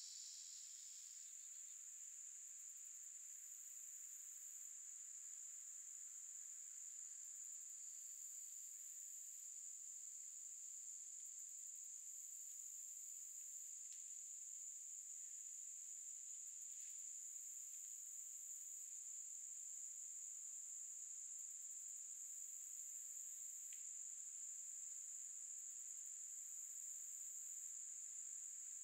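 Faint, steady high-pitched drone of summer insects. Above it, a second, even higher insect call comes in bursts of a second or two, about every five seconds.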